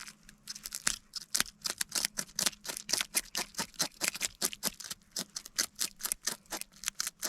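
A small work knife scraping the scales off a yellow perch in quick, regular strokes, about four a second, starting about half a second in; the scales are tough.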